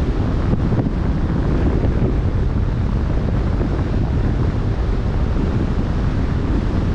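Wind buffeting the microphone over open sea, a steady low rumble, with the wash of choppy waves under it.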